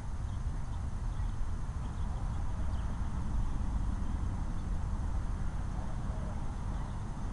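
Wind buffeting the microphone outdoors: a steady, uneven low rumble, with faint short high chirps above it.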